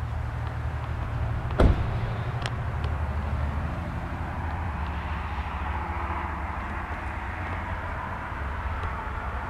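Pontiac GTO's 400 V8 with Tri-Power carburettors idling, a steady low rumble. A single sharp knock about a second and a half in.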